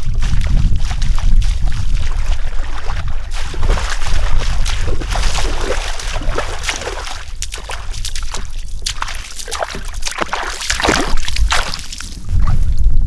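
Footsteps sloshing and splashing through shallow floodwater as a person wades along, over a low rumble of wind on the microphone.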